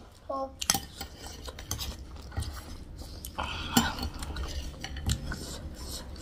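Metal spoons and forks clinking and scraping against plates as two people eat, in a scatter of short separate clinks.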